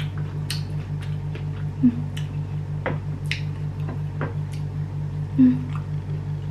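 Eating noises of a person eating rice by hand: scattered short wet smacks and clicks of chewing and lips, with two brief hummed 'mm's, about two seconds in and near the end, over a steady low hum.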